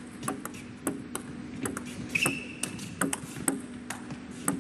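Table tennis rally: the celluloid-type ball clicking off rackets and bouncing on the table, sharp ticks every half second or so, over a steady low hum. A brief high squeak comes about two seconds in.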